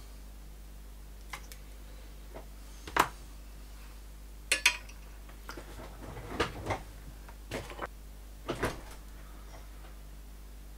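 Handling noise at a workbench: about six short clicks and clatters of small metal hand tools, pliers and side cutters, being put down on the bench and picked up. The two loudest knocks come about three and four and a half seconds in.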